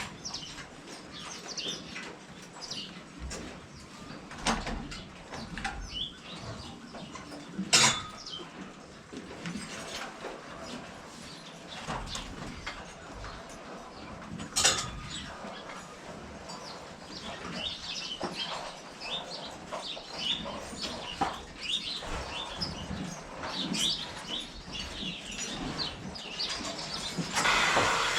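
Small birds chirping over a low background, broken by a few sharp knocks, the loudest about eight seconds in and another about fifteen seconds in; a steady hiss comes up near the end.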